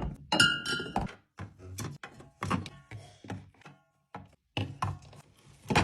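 Aluminium drink cans knocking and clinking as they are set into the rows of a packed mini fridge: a quick run of irregular thunks and taps, one early clink ringing briefly.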